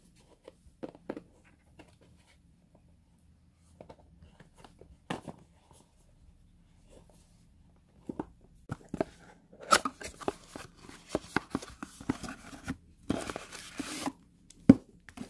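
Packaging being handled and opened: a few scattered clicks and rustles, then from about eight seconds in a busy stretch of rustling and clicking, with about a second of tearing just before a sharp, loud click near the end.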